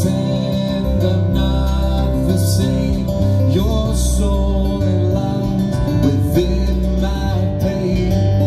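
Live band music: a strummed acoustic guitar over electric bass notes that change about once a second.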